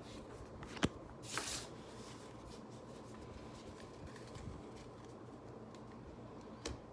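Pokémon trading cards being handled: a sharp tap about a second in, a brief swish just after, and another tap near the end, otherwise faint.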